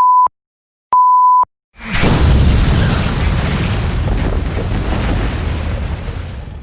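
Edited-in sound effects: a steady electronic beep, a second one about a second later, then a loud boom about two seconds in that slowly dies away.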